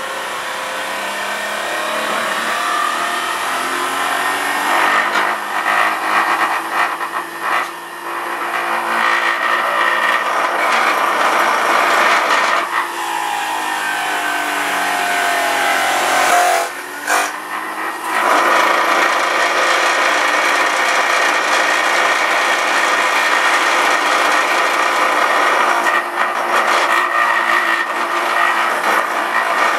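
Electric centrifugal juicer running as spinach is pushed down its feed chute onto the spinning shredder basket. The motor's pitch sags and recovers under the load, with a brief drop about two-thirds of the way through.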